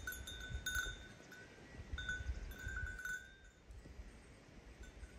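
A livestock bell on a walking flock of sheep ringing intermittently, in short clusters of clear, steady tones, over a low rumble that fades about three seconds in.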